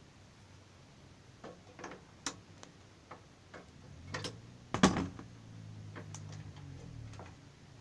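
Wrench and metal parts clicking and clinking as a motorcycle footrest bolt is undone, with one louder clank just before five seconds in, followed by a low hum for about two seconds.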